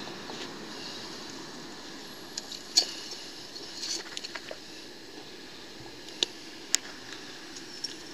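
A metal kick scooter, just hauled out of the water, being handled on concrete: a scattering of short, sharp clinks and knocks, the loudest about three seconds in, over a steady hiss.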